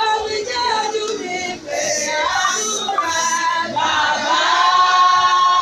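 Choir singing together at close range, with one long held note in the second half.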